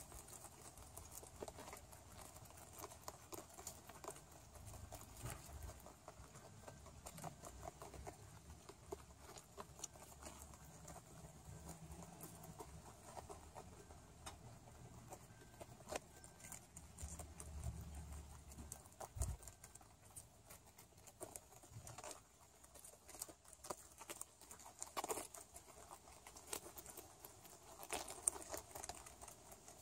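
Many rabbits crunching and chewing cabbage leaves: a faint, dense patter of small irregular crunches. A soft low thump about two-thirds of the way through.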